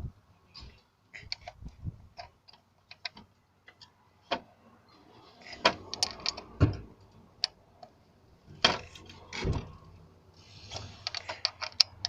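Scattered clicks and knocks of hand tools and metal parts being handled during engine repair work, irregular, with a few louder knocks in the middle and a quick run of clicks near the end.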